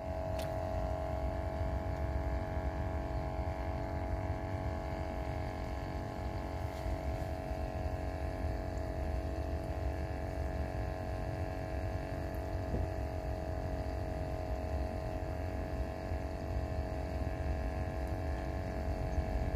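A steady hum of several held tones over a low rumble, unchanging throughout.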